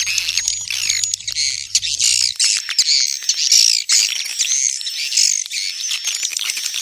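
Swiftlets chirping and twittering densely and without a break: a swiftlet call-sound (suara panggil walet) of the kind played to lure swiftlets into a nesting house.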